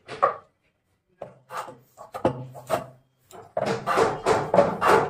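Wooden teak harmonium reed-board frames knocking and rubbing against each other as they are handled. A few separate knocks and scrapes come in the first three seconds, then a denser run of wood-on-wood rubbing and clatter from about three and a half seconds in.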